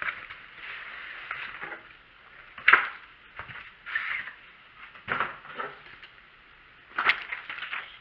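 Cardboard box rustling and scraping as a fabric tackle backpack is pulled out of it, with three sharper bumps, the loudest about a third of the way in.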